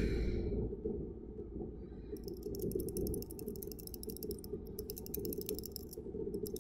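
Handling noise from a glass culture tube, its plastic slip cap and a wire inoculating loop: a run of fast, fine clicking starts about two seconds in and lasts about three seconds, then comes back briefly near the end. A steady low hum sits underneath.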